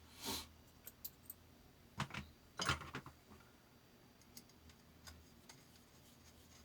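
Small metal parts being handled: scattered light clicks, with short clattering scrapes just after the start and about two seconds in, the loudest near three seconds in.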